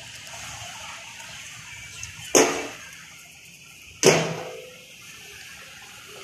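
A street dog giving two sharp, loud barks, about a second and a half apart, over a steady low background noise.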